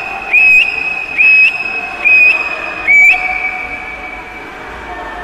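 Four loud whistle blasts in about three seconds, each swooping up into a high steady note, ringing in the pool hall, with the crowd cheering on a swimmer. After about three seconds the whistling stops and the hall's background noise carries on.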